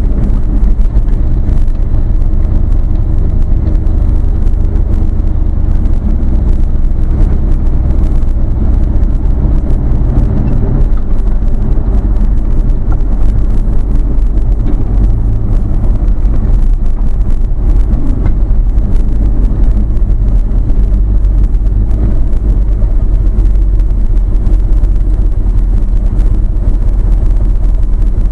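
Vehicle engine and road noise heard from inside the cabin while driving: a loud, steady low rumble.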